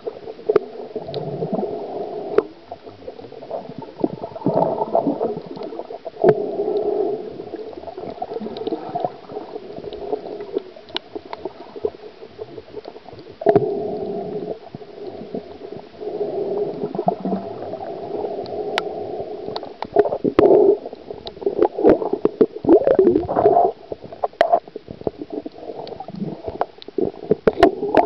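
Muffled underwater sound heard through a camera's waterproof housing: water gurgling and sloshing in repeated swells, with scattered sharp clicks and knocks.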